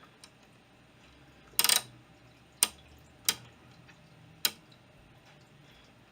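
Sharp clicks from the knobs and switches of a Tektronix Type 422 oscilloscope being worked: a quick rattle of clicks about a second and a half in, then three single clicks over the next two seconds.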